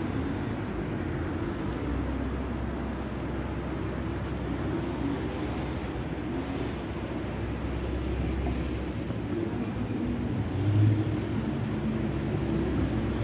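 City street traffic: cars running past in a steady rumble. A thin high whine lasts about three seconds starting a second in, and the rumble swells louder about eleven seconds in.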